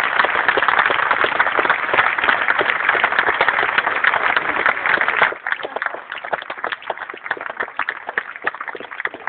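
Crowd applauding: dense, loud clapping that drops sharply about five seconds in to lighter clapping.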